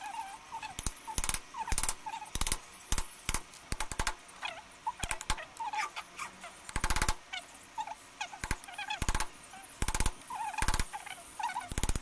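Repeated sharp knocks of a chisel being struck to cut the blade slot in a small wooden hand plane's block, irregularly spaced, some single and some in quick runs of blows. Short high squeaky chirps come between the knocks.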